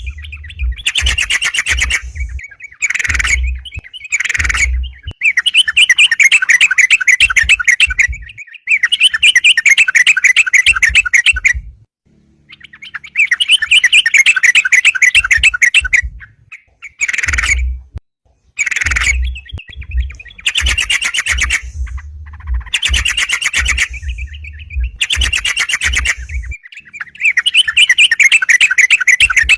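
Yellow-vented bulbul (crucukan) singing a loud, rapid, bubbling chatter in repeated phrases of one to three seconds, with short pauses between them. It is the bird's challenging, fight-provoking song, used as a lure.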